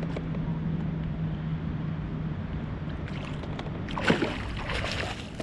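A flathead splashing as it is scooped into a landing net at the side of a kayak, a short burst of splashing about four seconds in, over steady water and wind noise.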